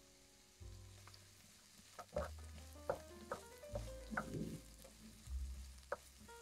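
Diced onion frying in oil in a nonstick pan, with a wooden spoon stirring and knocking against the pan several times from about two seconds in. Soft background music plays alongside.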